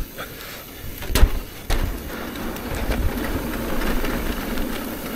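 Trek Rail electric mountain bike riding over rocky trail: tyres rumbling and the bike rattling, with sharp knocks about a second in and again half a second later as the wheels strike rocks.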